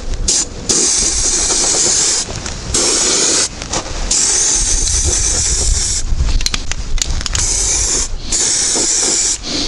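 Aerosol can of anti-gravel (stone-chip) coating spraying in several hissing bursts with short breaks between them.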